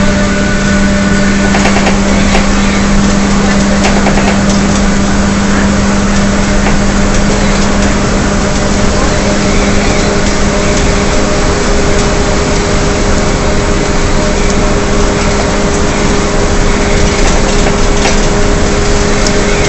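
Onboard sound of a 2009 Gillig Advantage transit bus with a Cummins ISL inline-six diesel and Allison B400R automatic transmission, cruising: a loud, steady howl over the drone of the drivetrain and the road noise. A second, higher steady tone joins about halfway through.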